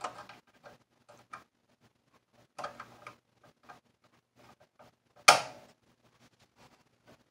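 Small clicks and scrapes of a tool and fingers prying at a CR2032 coin-cell battery in its holder on a circuit board, with one sharp, loud click about five seconds in.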